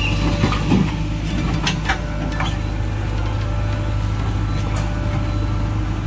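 A JCB backhoe loader's diesel engine running steadily, with a few sharp knocks in the first few seconds.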